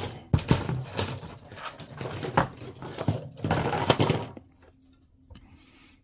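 Plastic model-kit runners being handled and shuffled, a busy rustle with many sharp clicks and clacks that stops about four and a half seconds in.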